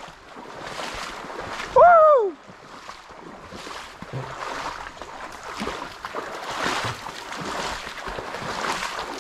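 Legs wading through knee-deep swamp floodwater, a steady sloshing and splashing with each stride. About two seconds in, one loud, short whooping call rises then falls.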